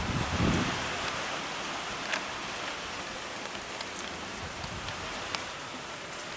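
Steady rain falling, with scattered sharp ticks of drops striking nearby surfaces. There is a short low thump about half a second in.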